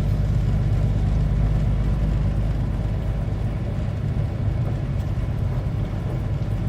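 Steady drone of a semi-truck's diesel engine with road noise while cruising, heard from inside the cab.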